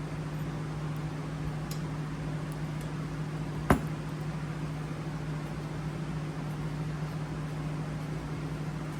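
Steady low machine hum, with a single sharp click a little under four seconds in and a fainter tick near two seconds in.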